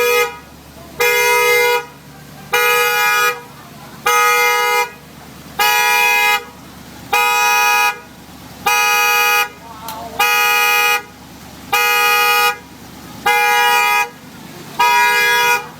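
Car alarm sounding through the car's two-tone horn, which blares in regular pulses: about ten blasts, one every second and a half or so.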